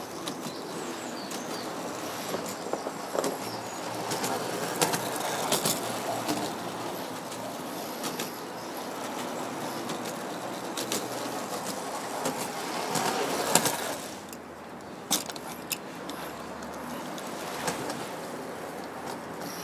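Hornby O gauge Type 50 clockwork locomotive running round the track: its wound-up spring motor and wheels give a steady whirring rattle with sharp clicks scattered through it. The sound swells twice, about four seconds in and again around twelve to thirteen seconds, then drops back a little.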